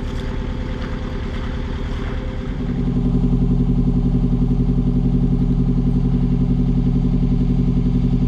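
Hire cruiser's inboard diesel engine chugging steadily under way. About two and a half seconds in it gets louder, with a fuller, steadier note.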